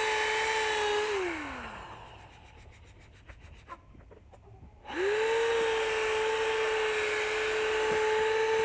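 Electric drill spinning a sanding disc against a plastic headlight lens during wet sanding, running with a steady whine. About a second in the drill is let off and winds down; it stays off for about three seconds, then starts up again near the five-second mark and runs steadily.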